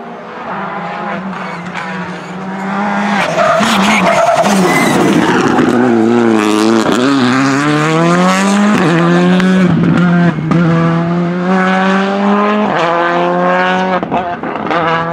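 Rally car's engine at full throttle passing close by, then accelerating away. Its pitch climbs and drops back several times with the upshifts.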